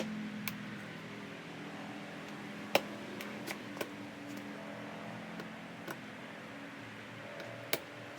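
Scattered sharp clicks and taps of plastic fender pieces being handled and fitted together, the two loudest near the middle and near the end, over a low steady hum.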